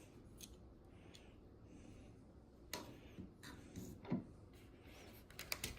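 Faint clicks and light taps of tools and parts being handled, with a quick run of clicks near the end.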